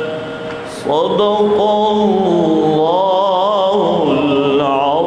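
A man's voice reciting the Quran in a melodic, chanted style. After a short pause a new phrase begins about a second in, with long held notes that waver up and down in ornamented turns.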